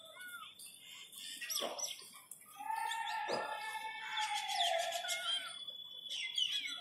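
Birds chirping and calling. There are quick high chirps, two sharp downward-sweeping calls, and a drawn-out call near the middle.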